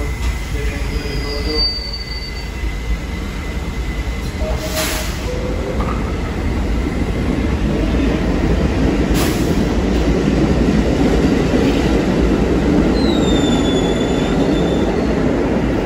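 New York subway trains at an elevated station: a rumble that builds through the second half as a train comes round the curved track, with wheels squealing in thin gliding tones near the end. Two short hisses of air, about five and nine seconds in.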